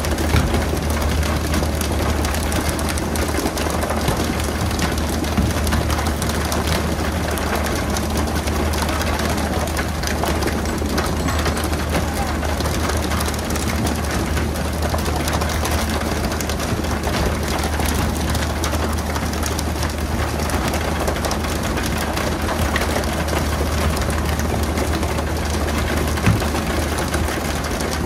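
A fishing boat's engine running steadily with a low, even hum, under a constant hiss of noise.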